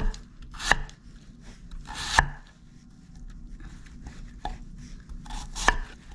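Kitchen knife slicing a Korean radish into large chunks on a wooden chopping board. Each stroke crunches through the radish and knocks on the board, in a handful of uneven strokes with a short lull in the middle.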